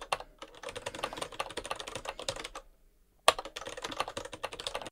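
Fast typing on a computer keyboard, a dense run of keystroke clicks. It stops for about half a second a little past halfway, then resumes.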